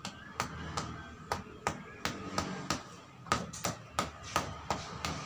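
Repeated dull knocks of a fist on the side of a black plastic bonsai pot, about three a second, loosening the root ball so the tree group can be lifted out for repotting.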